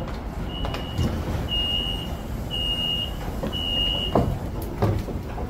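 Four high electronic beeps, evenly spaced about one a second, from a passenger train's door warning at an open door, over the steady low rumble of the train standing at the platform. A couple of short knocks follow near the end.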